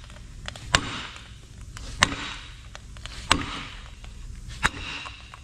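Sledgehammer striking the end of a long steel drift bar, driving the pin out of a Caterpillar D9R equalizer bar: four heavy metallic blows about 1.3 seconds apart, each ringing briefly.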